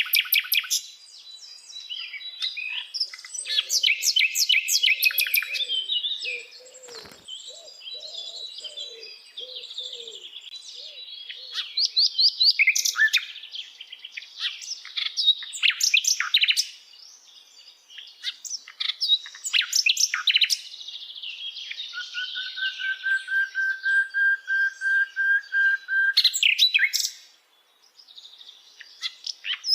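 A sikatan londo flycatcher singing a long, varied song of fast trills and chattering phrases, with a steady held whistle lasting several seconds near the end.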